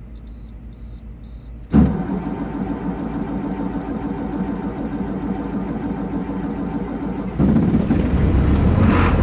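International DT466 diesel of a 2006 IC FE school bus on a cold start with no block heater plugged in: the starter cranks it steadily for about five and a half seconds from about two seconds in, then the engine catches and keeps running, louder and deeper, near the end. A dashboard beeper beeps repeatedly before the cranking begins.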